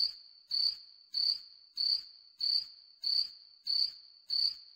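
Cricket chirping in short, evenly spaced chirps, about three every two seconds, each a high trill.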